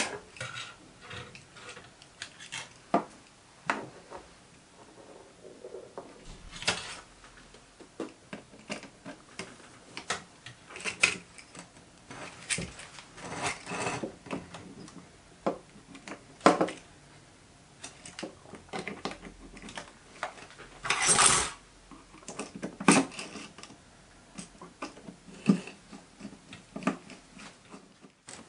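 Hands handling a plastic digital readout console and plugging a scale cable into the connectors on its back: scattered clicks, taps and knocks, with one longer scrape about two-thirds of the way through.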